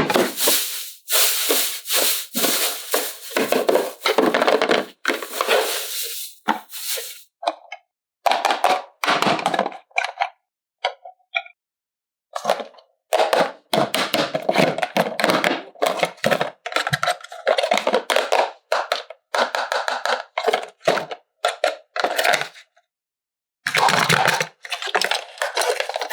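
Plastic toy parts being handled: clicks, knocks and scrapes of hard plastic, coming in bursts with a few short pauses.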